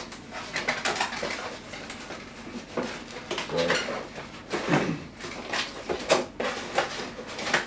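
Hands opening a box and handling its packaging and contents: irregular light clicks, clatter and rustling.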